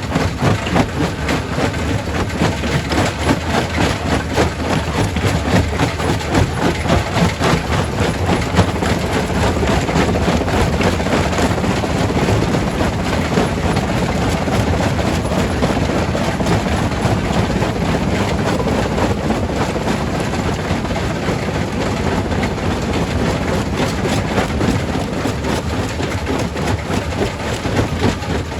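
Quarry primary rock crusher running as it breaks stone: a dense, continuous clatter of rock on steel over a steady low machine drone.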